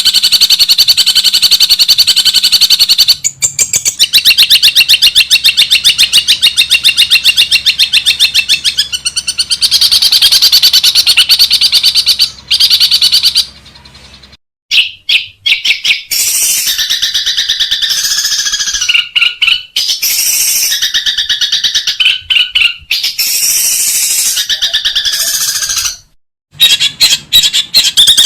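Long-tailed shrike (cendet) singing a loud, fast chattering run of rapidly repeated notes. About halfway it changes to shorter, varied phrases separated by brief breaks.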